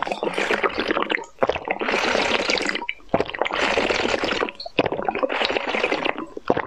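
Close-miked, wet, crackly eating sounds of ice cream being chewed, in four stretches of a second or so with short pauses between them.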